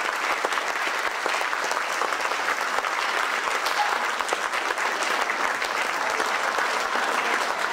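A theatre audience applauding, many hands clapping together at a steady level.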